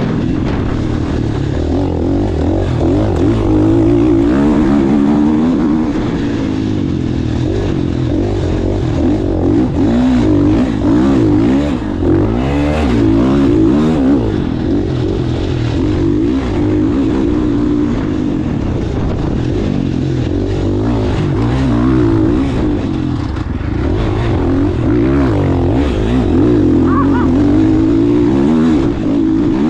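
Dirt bike engine on the move, its pitch rising and falling continually as the throttle is opened and rolled off. It never drops to idle and never cuts out.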